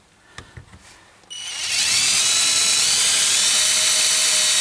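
DEKO cordless drill starting up about a second in after a few faint clicks, then running at steady speed with a high whine as it drills a hole through a plastic scooter body panel.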